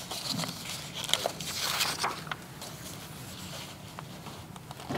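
Soft rustling and scattered small clicks close to a handheld microphone, busiest in the first two seconds and sparser after, over a faint steady low room hum.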